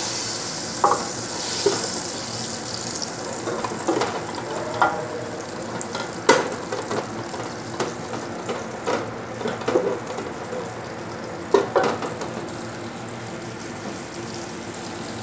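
Butter melting and sizzling in a stainless steel pot, with a steady hiss that is brightest in the first few seconds. A wooden spoon stirs and knocks against the pot several times.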